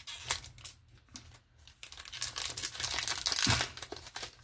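Foil Yu-Gi-Oh! booster pack wrapper being torn open and crinkled by hand: scattered crackles at first, then a denser run of crinkling and tearing from about two seconds in.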